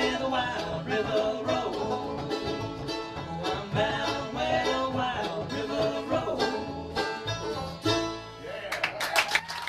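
Bluegrass band of banjo, acoustic guitar, mandolin and upright bass playing the song's closing bars, ending about eight and a half seconds in; audience applause starts right after the last chord.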